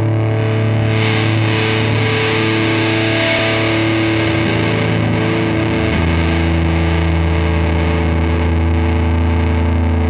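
Rock music: a distorted electric guitar holds sustained chords over a steady low note, the chord shifting lower about six seconds in, with no singing yet.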